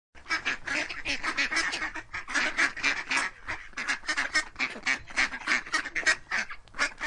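A rapid, unbroken run of short animal calls, several a second.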